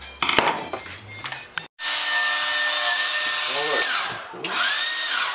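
Reassembled handheld hairdryer switched on, its fan motor running with a loud rush of air and a steady whine about two seconds in, after a few handling knocks. The whine sags and comes back up around four seconds in, then winds down near the end as it is switched off; it runs only on high, its one remaining setting.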